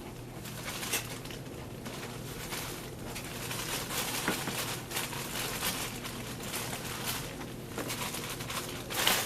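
Irregular clicks and scraping from handling a corona-style hand grain mill while its grind adjustment is tightened, with a louder click near the end. A faint steady low hum runs underneath.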